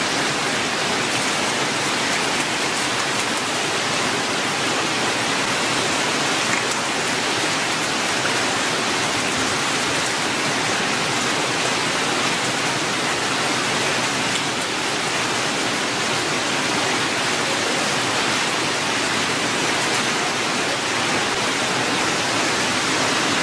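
Steady rush of running water pouring through a hatchery trough crowded with fish.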